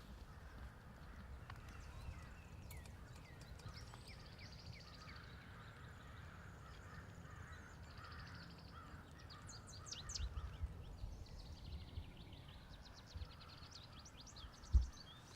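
Springtime woodland ambience: songbirds chirping and trilling over a low steady rumble, with one short low thump near the end.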